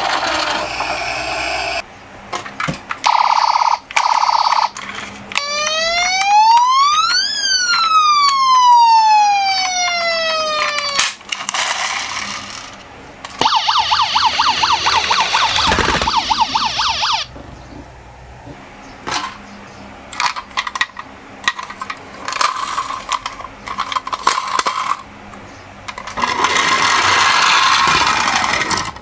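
A toy minicar's electronic siren. About three seconds in there is a steady tone. Then comes one long wail that rises for about two seconds and falls for about four, and later a fast warbling tone for about four seconds, with clicks and the rattle of the small toy cars rolling down a slope around it.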